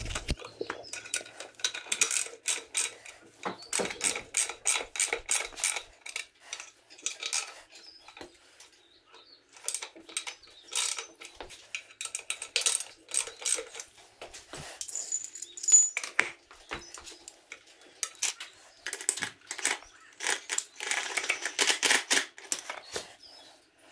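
Hand ratchet wrench clicking in quick bursts of strokes on a socket and extension as bolts are turned, with a few metal clinks from the tools. One sharper clank comes about two-thirds of the way through.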